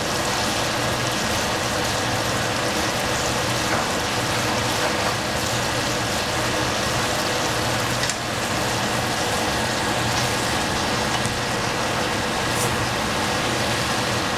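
Baby bok choy, onion and bean thread cooking in a pan of water on the stove, a steady hiss with a faint low hum under it; the bean thread is softening.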